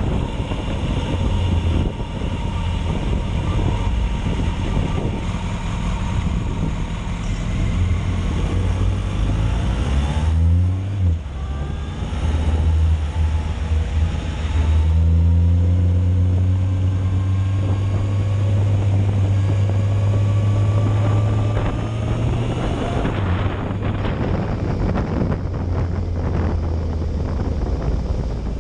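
Yamaha Fazer motorcycle's inline-four engine under way: the revs fall about a third of the way in, then rise as it pulls away and accelerates, hold steady, and ease off again near the end. Wind buffets the microphone throughout.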